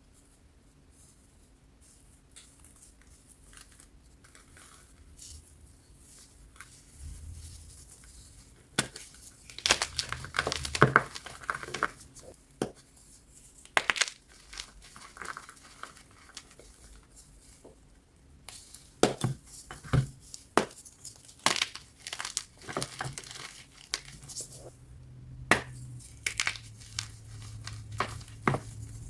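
BSN gym chalk block being crunched. Soft rustling for the first several seconds, then irregular sharp crunches and crumbling from about nine seconds in.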